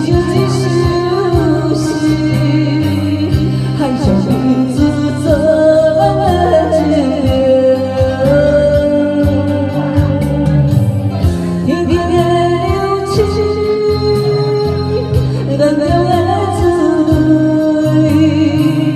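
Music from a ballad: a melody line with gliding, held notes over a repeating bass line and a steady beat.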